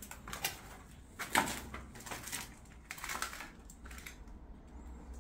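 Footsteps crunching on fallen plaster and debris, about one step a second, five or six steps that stop about four seconds in.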